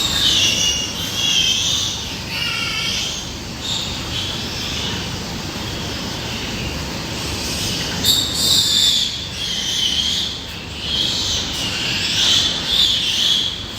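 Pigs squealing in repeated high-pitched bouts, the loudest about eight seconds in and again near the end.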